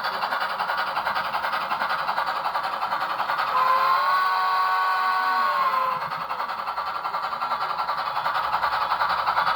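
Cab-forward steam locomotive running with quick, even chuffing, and a multi-tone chime whistle sounded once for about two and a half seconds in the middle.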